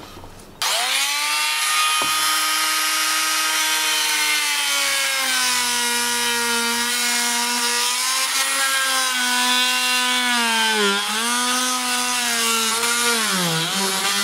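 Oscillating multi-tool with a wood-cutting blade plunge-cutting through a timber deck board: a loud, steady buzz that starts suddenly about half a second in, its pitch easing down a little as the blade bites and sagging briefly twice near the end under load.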